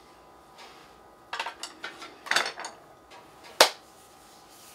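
Light clinks and scrapes of kitchen utensils and ceramic dishes, with one sharp clack about three and a half seconds in.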